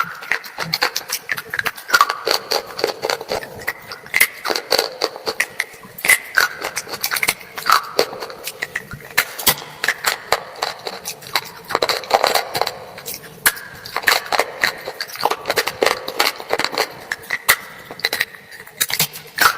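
Close-miked mouth biting and chewing a hard, dry, brittle item: dense, irregular crisp crunches and crackles, several a second, with no let-up.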